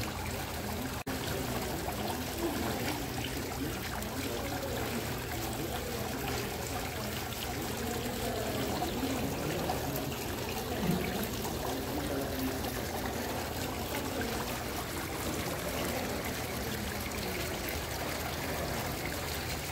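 Decorative indoor water wall: water spilling steadily over a ledge in thin streams and splashing into the basin below, a continuous trickling.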